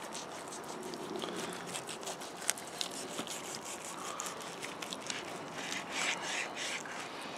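Serrated knife sawing through the crisp bacon wrapping and meat of a roast leg of fallow deer: a run of small crackles and scrapes, with louder rasping strokes about six seconds in.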